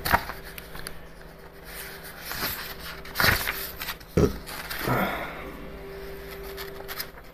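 Paper pages of a printed book being turned by hand: several short rustles and flaps, the loudest a little over three seconds in and just after four seconds, over a faint steady hum.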